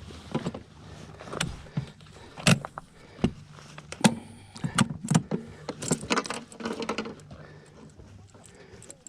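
Suzuki Burgman 200 scooter's engine running low and steady under a string of irregular clicks, knocks and rattles, which are the loudest sounds.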